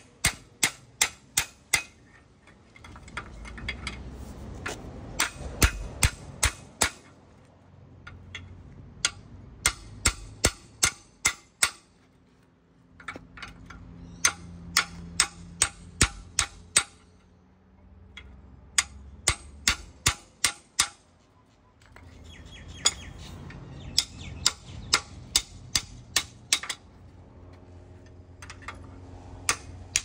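Claw hammer striking a steel storm-drain grate and a metal bar wedged into it: quick runs of sharp metallic taps, about four to six a second, broken by short pauses, about six runs in all.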